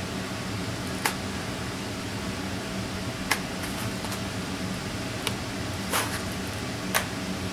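Hard plastic blister pack being handled and pried at, giving about five short, sharp clicks spread over several seconds, over a steady low hum.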